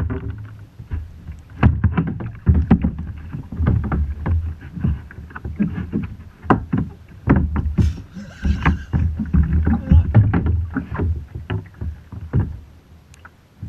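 Water splashing and sloshing around a fishing kayak, with irregular knocks and thumps on the hull.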